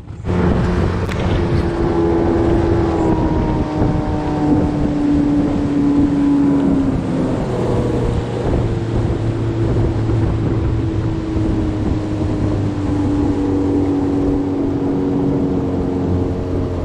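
Outboard motor driving a small jon boat, its sound jumping up just at the start and then running steady at cruising speed.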